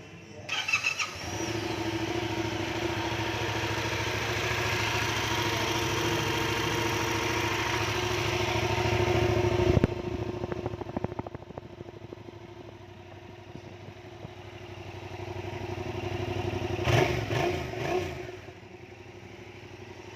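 Stock Yamaha MT-07 with a 689 cc crossplane parallel-twin engine, heard through its standard exhaust. It fires up just after the start and runs steadily. About halfway through it drops to a quieter idle, and two or three short throttle blips come near the end.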